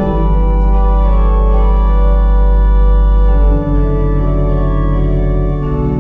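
Organ music: sustained chords over a deep bass, with a change of chord about three and a half seconds in and again near the end.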